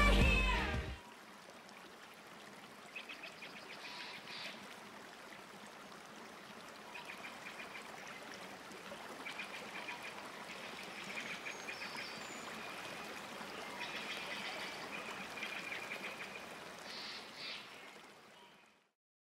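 The last of the music cuts off about a second in, leaving faint woodland ambience: a steady soft hiss with trains of high chirping bird calls. It fades out near the end.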